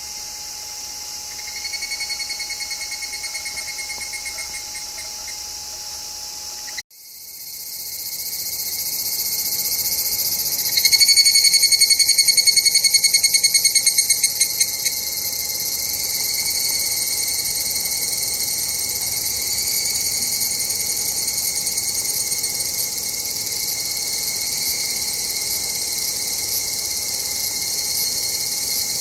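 Higurashi evening cicadas calling, their rapidly pulsing kana-kana calls rising and fading over a steady high chorus. The loudest call starts about 11 seconds in and dies away over a few seconds. Near 7 seconds the sound cuts out abruptly and fades back in.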